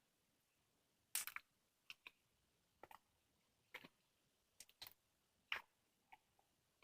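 Slime being squeezed and pressed by hand, giving a string of short, sharp clicks and pops, irregularly spaced with quiet in between.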